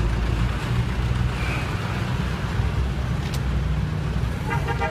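Steady low rumble of motorbike engines in slow street traffic. A voice starts near the end.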